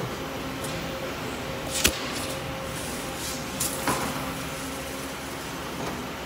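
Automatic press machine running with a steady hum and a constant tone. Short sharp clacks stand out above the hum, the loudest about two seconds in and two more close together near four seconds.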